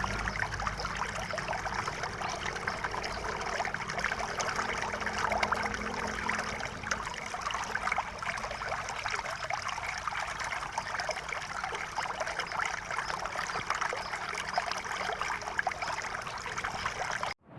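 River water running steadily, a continuous stream sound that cuts off abruptly near the end.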